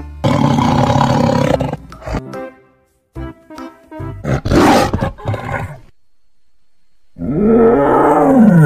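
Tiger roaring: a loud, pitched roar that falls in pitch near the end, after two shorter, noisier roar-like bursts, one about a second long at the start and one around the middle. Snatches of a simple tune play between them.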